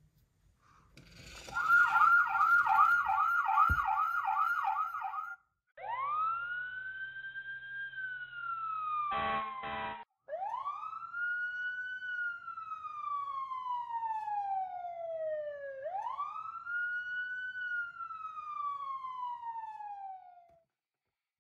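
Toy fire truck's electronic siren: a fast warbling yelp for about four seconds, then three slow wails that rise and fall. A short buzzing blast comes during the first wail.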